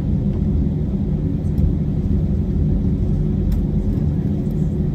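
Airbus A320-232 passenger cabin noise while taxiing: a steady low rumble from its IAE V2500 engines at idle thrust and the airframe rolling along the taxiway.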